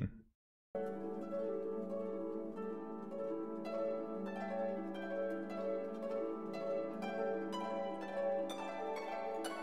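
Instrumental background music, starting after a brief silence a little under a second in.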